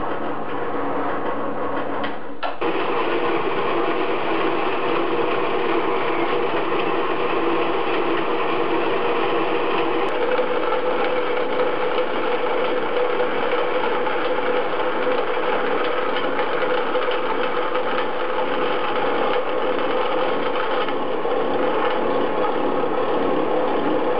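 Drill press motor running for about the first two seconds. After a cut, a power saw with a vertical blade cuts steadily through a thick aluminium plate, shaping a bracket, with a steady tone coming in near the middle.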